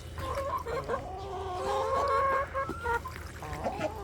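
A flock of backyard hens clucking, several birds at once with overlapping calls throughout, loudest about two seconds in.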